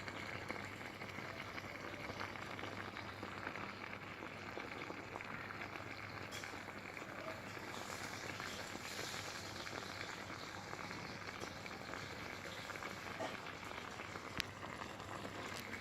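Water in a glass boiling around two razor blades that carry electric current as a homemade immersion heater: a steady bubbling fizz with a few sharp ticks.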